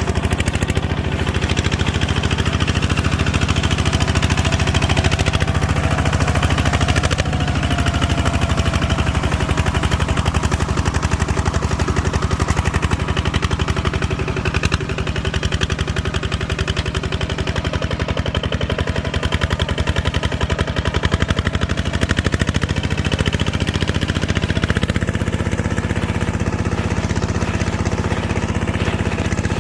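Farm machinery engine running steadily under load during a rice harvest, its note shifting slightly about twenty-five seconds in.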